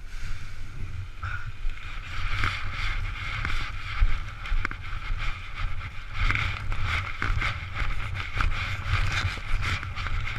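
Wind buffeting the microphone with a steady low rumble, over the crinkling rustle of a paraglider's nylon wing being bundled up and carried, with irregular crackles throughout.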